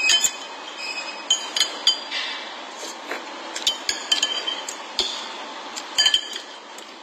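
A metal utensil clinking against a bowl while eating noodles, in a string of irregular, ringing clinks bunched into short runs.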